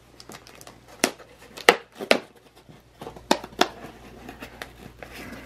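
Small cardboard box being handled and opened by hand: a run of sharp cardboard taps and snaps, the loudest a little under two seconds in, with fainter ticks between.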